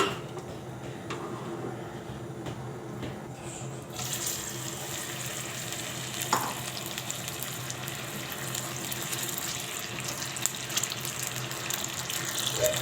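Water running steadily from a kitchen tap, growing fuller and brighter about four seconds in.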